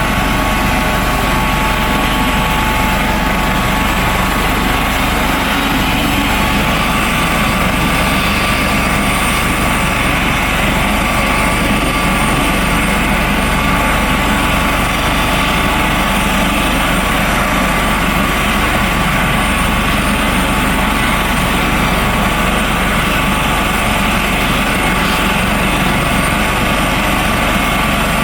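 Coast Guard helicopter running steadily: turbine engine and rotor noise with a steady high whine throughout.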